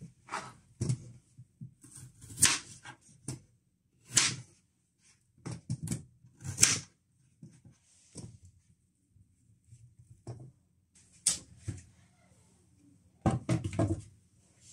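Kitchen knife chopping peeled potatoes on a wooden chopping board: sharp, irregular cuts a second or more apart. Near the end comes a cluster of knocks as a metal pan is handled.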